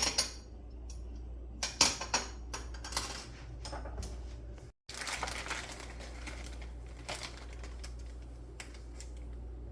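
Small metal parts of a garbage disposal mounting kit clinking and clattering as they are handled, with a run of sharp clicks in the first few seconds and only scattered light clicks after.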